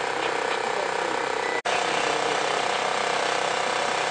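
Steady, fast mechanical rattle, broken by a very short dropout about a second and a half in.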